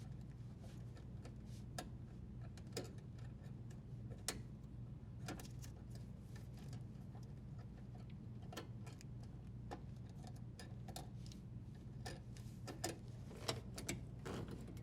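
Faint, irregular small clicks and taps of hands working plastic wire nuts and wires in a dishwasher's electrical junction box, over a steady low hum.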